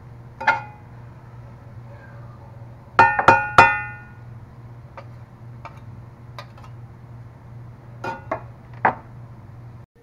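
Metal spatula clanking and scraping against a cast-iron skillet while stirring vegetables. Three sharp, ringing clanks come in quick succession about three seconds in, with lighter clicks scattered through and a few more clanks near the end, over a steady low hum.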